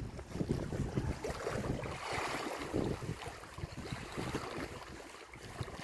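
Wind buffeting the microphone in uneven gusts, over the hiss of sea waves washing on the shore, which swells about two seconds in.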